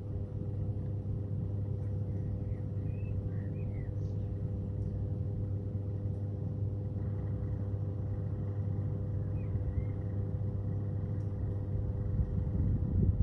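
A steady low mechanical hum with a constant pitched drone, swelling louder about twelve seconds in. A few short high chirps come and go over it.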